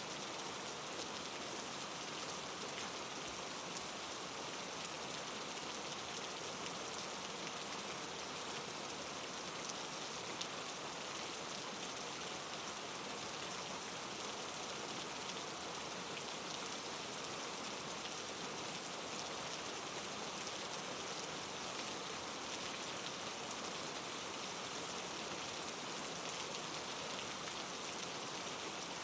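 Steady rain falling, an even hiss with the patter of drops on a surface.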